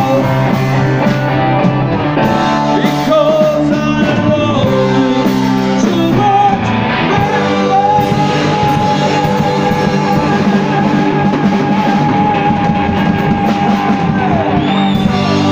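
Live rock band playing loudly: a singer over electric guitar, bass and a drum kit. About halfway through, one long high note is held for roughly seven seconds, then falls away.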